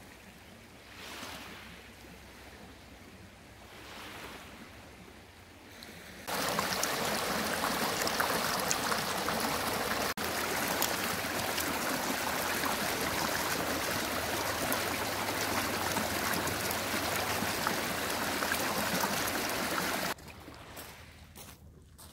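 Small lake waves on a pebble beach: soft lapping for the first six seconds, then, all at once, a loud steady rush of water washing over stones right at the microphone, with a brief break partway through. The rush cuts off suddenly near the end, back to faint lapping.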